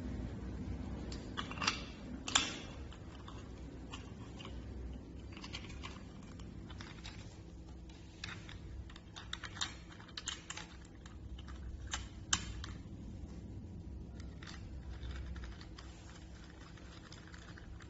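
Scattered light clicks and taps of a rim lock's cylinder and metal parts being handled and fitted, over a faint low hum.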